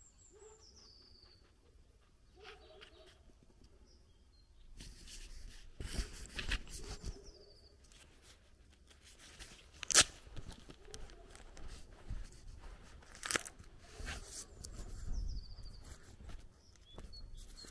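Small birds chirp over a quiet outdoor background. About five seconds in, footsteps start crunching on a gravel and dirt track, with a few sharper clicks among them.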